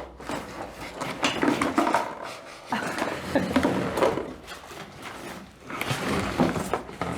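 Irregular scraping, rustling and knocking of a cardboard box being pushed through a small slot in the shelter wall, in three bursts with short pauses between.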